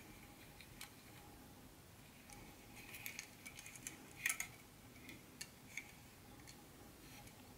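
Faint, scattered light plastic clicks and taps as an HO-scale model train caboose is handled and turned over, with the loudest cluster of clicks a little past halfway.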